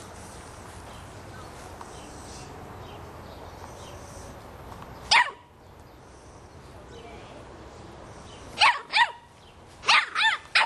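Boston Terrier puppy, about three and a half months old, barking: one sharp bark about halfway through, then two quick barks and a burst of three near the end.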